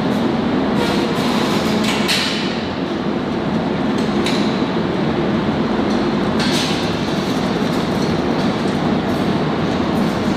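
A loud, steady rumble fills the kennel room, with several sharp metallic clanks a second or two apart, the kind made by chain-link kennel gates and steel fittings.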